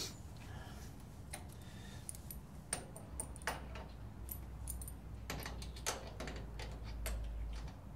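Irregular light metallic clicks and clinks of a wrench working a nut on a sawmill's blade guide assembly, several close together in the middle stretch, over a low steady hum.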